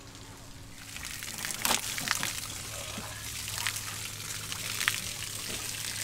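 Water running from an outdoor shower and splashing onto the wet ground below it, starting about a second in, with a few sharp clicks and splats as fish are rinsed under it.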